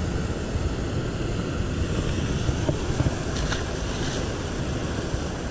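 Steady rushing of water pouring over a concrete spillway and churning below it.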